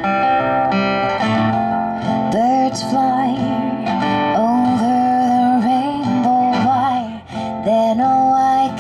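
A woman singing with her own strummed acoustic guitar, the sung melody held and gliding between notes over steady chords.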